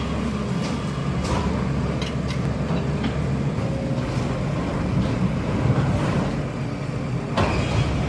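A bulldozer's engine running steadily, with scattered knocks and clatter.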